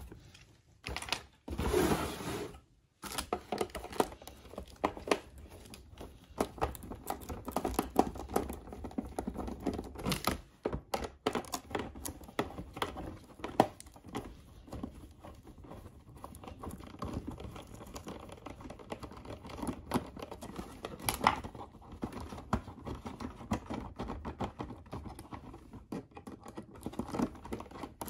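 Small screwdriver turning out screws through plastic retaining washers in a cardboard box: a run of light clicks, taps and scrapes. There is a louder rustle of cardboard or plastic about two seconds in.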